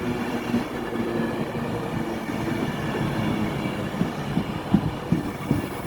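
Class 390 Pendolino electric train moving along the platform, a steady running rumble with a faint electric hum, and a short run of wheel knocks over rail joints about four seconds in.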